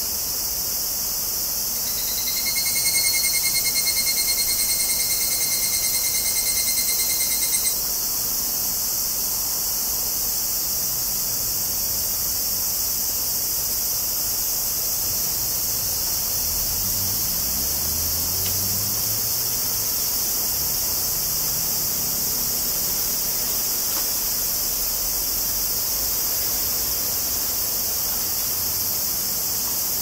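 A higurashi (Tanna japonensis, evening cicada) sings one rapidly pulsed, ringing call of about six seconds. It starts about two seconds in and stops abruptly, over a steady high hiss.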